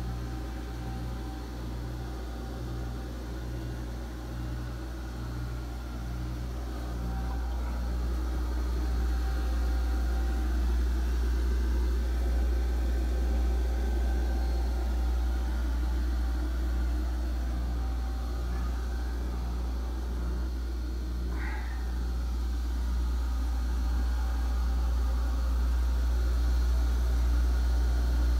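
Steady low hum of running machinery in a boat's engine room, growing a little louder after several seconds. A brief rising squeak sounds about three-quarters of the way through.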